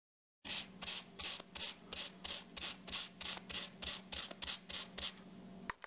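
Sandpaper rubbed by hand over the flat surface of a stained chip-carved wooden board, rasping in quick back-and-forth strokes at about four a second.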